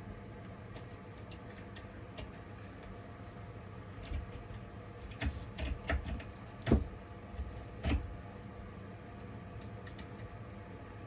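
A handful of sharp clicks and knocks from chainsaw parts being handled and fitted during assembly, bunched in the middle with the loudest knock about two-thirds of the way through, over a steady low hum.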